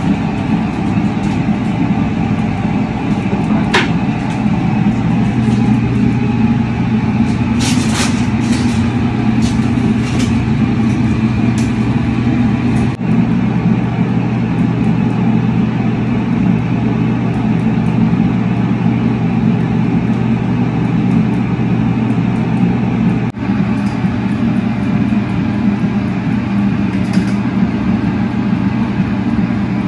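Steady engine and road noise of a car heard from inside the moving cabin, with a few faint clicks from about four to twelve seconds in.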